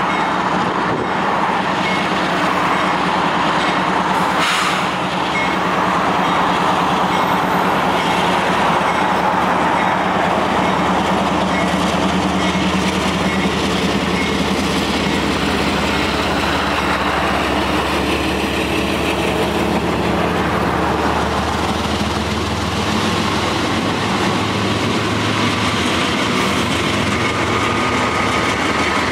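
Union Pacific diesel freight locomotives passing close by, their engines running with a steady low rumble over the noise of wheels on the rails. Near the end the last locomotive goes by and the freight cars follow.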